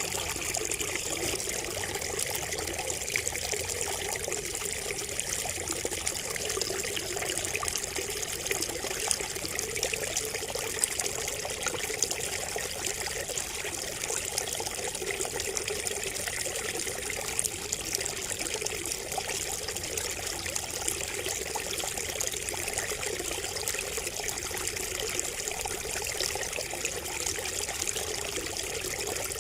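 Water trickling and splashing steadily from a bamboo spout, a continuous babble of small drops.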